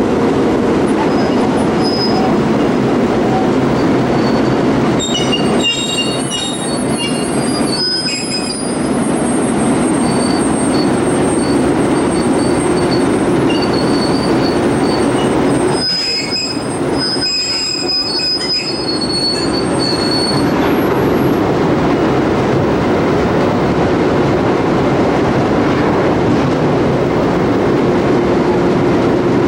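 Freight train rolling on the rails with a steady rumble, its steel wheels squealing against the rails in two spells, about five seconds in and again past the middle.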